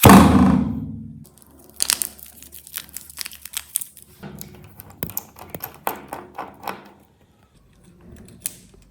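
A loud thud, then a run of light clicks, taps and crinkling as small phone parts and tools are handled on a work surface, and one last click near the end.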